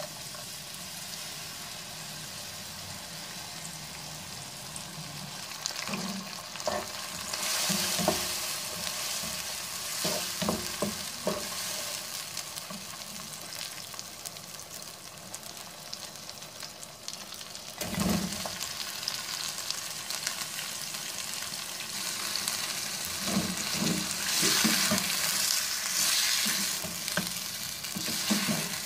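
Food sizzling in hot oil in a wok while a wooden spatula stirs it, with scattered knocks of the spatula against the pan. Just past halfway there is a sudden change, and the sizzling grows louder near the end as mutton pieces are stirred through.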